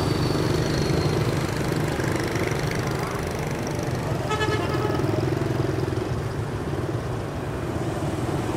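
Road traffic with vehicle engines running steadily, and a short horn beep about halfway through.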